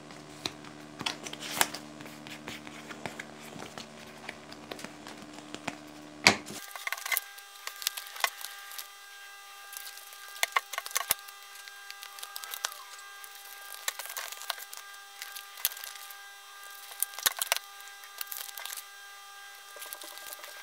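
Printed card stock being folded and creased by hand: irregular crackles, rubs and sharp snaps of the card, with one louder snap about six seconds in.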